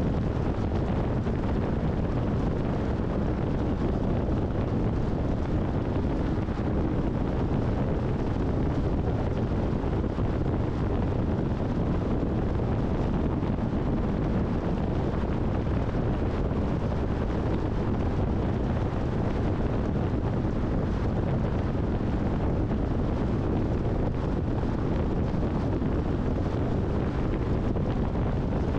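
Steady rushing wind and road noise of a car cruising at highway speed, an even low rumble that does not change.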